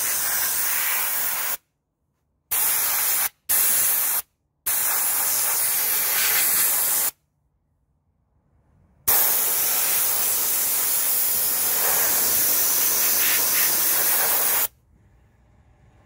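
Gravity-fed soda blaster's compressed-air nozzle hissing as it blasts bicarb soda onto aluminium engine cases. It runs in several blasts that start and stop abruptly, the last and longest lasting about five and a half seconds.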